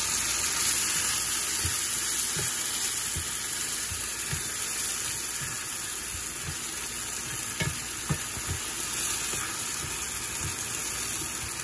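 Shredded chicken and bamboo shoots sizzling in a nonstick frying pan as a splash of water and sauce cooks in, a steady hiss. A wooden spatula stirs the food and knocks softly against the pan now and then.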